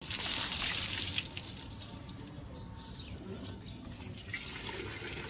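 Water poured from a steel jug over a person's head, splashing loudly for about a second, then quieter dripping and trickling. Birds chirp from about halfway through.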